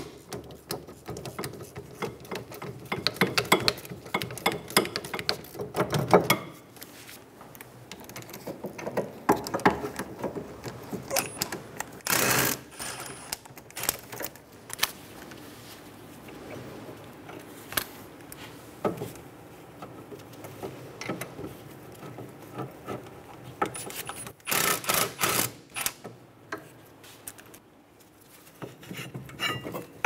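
Ratcheting wrench clicking in quick runs as the caliper bracket bolts on a rear brake are turned out, with metal clinks of tools and parts. A few louder, harsher bursts stand out partway through and near the end.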